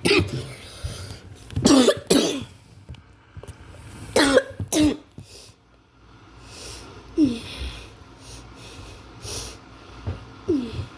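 A person coughing several times in quick pairs, then two shorter throat sounds, over the faint hiss of an electric kettle beginning to heat.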